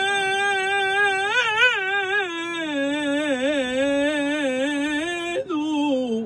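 A male cantor singing solo in Mizrahi hazzanut style without words: a long held note, then an ornamented run with heavy vibrato that steps down in pitch, breaking off briefly near the end.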